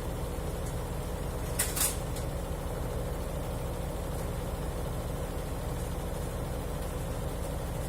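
Midea washer-dryer spinning its drum in the spin cycle, a steady low rumble with a constant hum above it and a short hiss about a second and a half in. It is the spin noise that the owner says began after eight months of use and that the authorised technician called normal.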